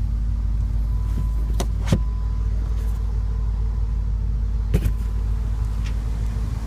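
Steady low rumble with a faint constant hum, and a few light clicks, two close together about two seconds in and one near five seconds.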